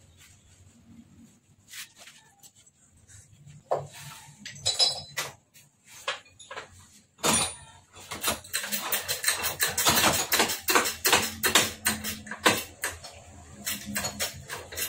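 Metal clinks and knocks at a hydraulic workshop press holding a motorcycle front fork and triple clamp. A few scattered clicks come first, then a dense run of rapid metallic clatter from about eight seconds in until near the end.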